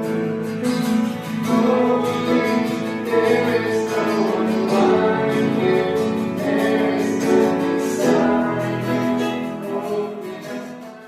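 Worship song with singing over strummed acoustic guitar, fading out near the end.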